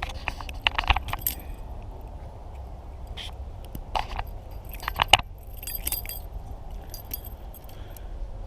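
Fishing tackle being handled: several clusters of small, sharp metallic clicks and clinks, the loudest group about five seconds in, over a steady low rumble.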